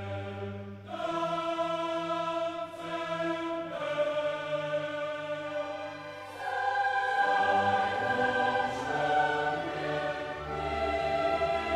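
Background music of a choir singing slow, held chords that change every second or two.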